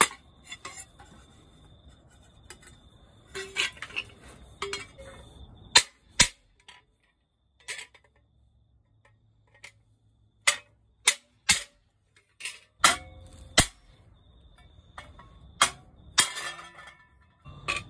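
Hammer striking a hand punch on a steel plate laid over an anvil, punching out the rest of the holes: sharp metallic strikes at irregular intervals, with a pause of a few seconds in the middle.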